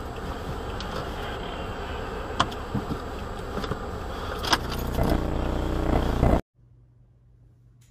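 Steady low rumble inside a stopped car, picked up by a dash camera's microphone, with a few sharp clicks, the loudest about two and a half and four and a half seconds in. The sound cuts off suddenly about six and a half seconds in, leaving only a faint low hum.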